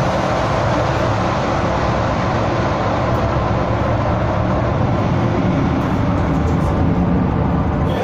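Steady mechanical drone and rumble, with no change in level, from machinery running.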